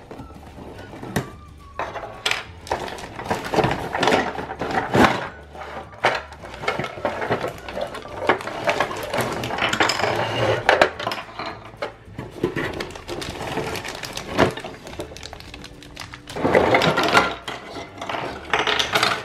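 Plastic pieces of a Play-Doh Burger Builder playset clattering and knocking on a table as they are taken out of their cardboard box, with cardboard and packaging rustling. The clatter comes in many short knocks, thickest near the end.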